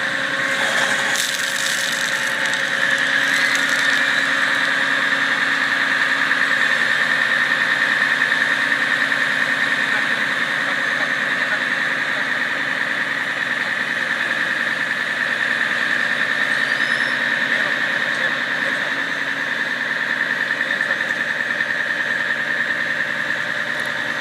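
Volkan aerial ladder fire truck running, its engine under a steady high-pitched whine that holds at one pitch.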